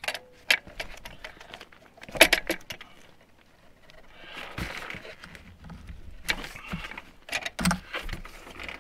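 Scattered metallic clicks and clinks from a brake line bender being worked on a steel high-pressure fuel line, with the loudest cluster about two seconds in. A brief scraping rustle comes around the middle.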